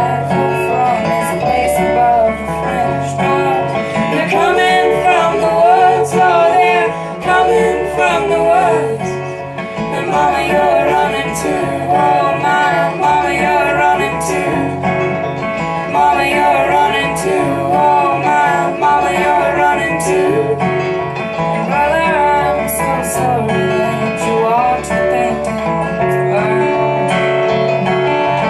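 Folk song performed live: plucked guitar with a singing voice carrying the melody over it.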